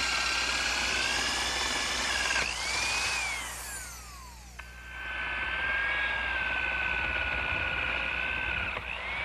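Electric drill boring a hole through plywood, its motor whining steadily, then winding down when released about two and a half seconds in. It starts again about two seconds later for a second hole and winds down near the end.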